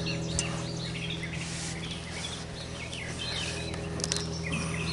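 Birds chirping over a steady low machine hum, with a sharp click about half a second in and another about four seconds in.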